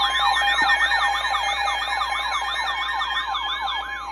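Electronic emergency alert tone on a broadcast warning: a fast siren-like warble, about six rising-and-falling sweeps a second, over a steady two-tone attention signal. The steady tones cut off near the end.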